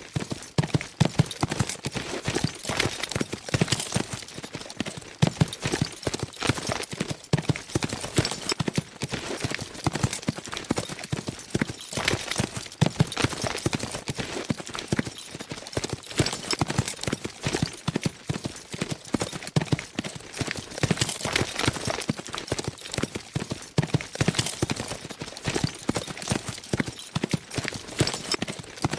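Several horses galloping fast: a dense, unbroken drumming of overlapping hoofbeats.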